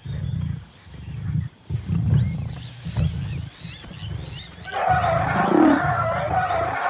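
Lions growling again and again at close range. About five seconds in, a louder, wavering, higher-pitched cry starts and holds.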